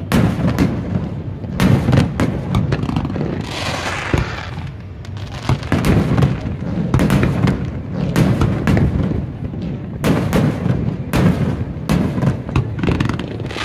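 Aerial fireworks shells bursting overhead in quick succession, booms coming one or two a second over a continuous low rumble, with a hissing crackle about four seconds in.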